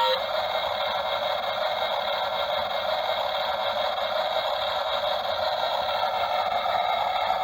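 Excavator running steadily: an even machine noise with no deep rumble and no change in level.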